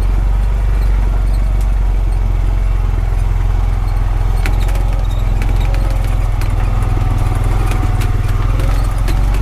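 Honda Pioneer 520 side-by-side's single-cylinder engine running steadily under way, with scattered light clicks and rattles from about halfway on.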